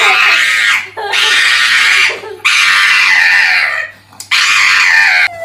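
Loud, harsh screaming in four cries of about a second each, with short gaps between them and the pitch sliding down at the end of each cry.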